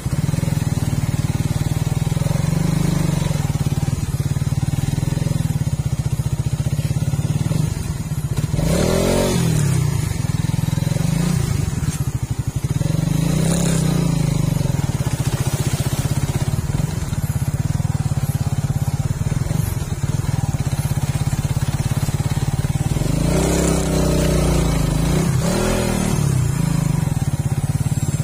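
Suzuki Raider 150 Fi motorcycle's single-cylinder four-stroke engine running under way, the revs swelling and dropping back several times: about nine seconds in, near fourteen seconds, and twice in quick succession near the end.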